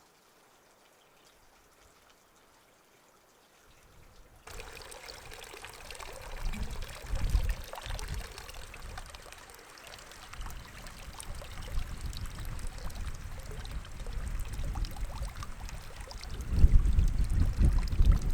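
Near silence for the first few seconds, then a steady rushing noise starts abruptly. Strong wind buffets the microphone in low rumbling gusts a couple of seconds later and again near the end, the loudest part.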